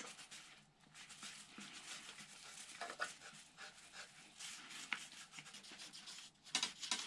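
Faint rubbing of a damp cloth towel wiped along a cork rod grip, cleaning off leftover wood-putty filler. A few light knocks near the end.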